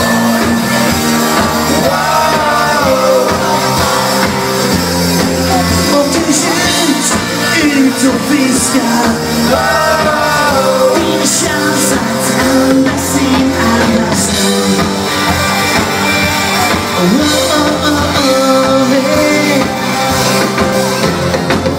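Live rock band playing: electric guitars and a drum kit under a lead singer's voice, loud and continuous throughout.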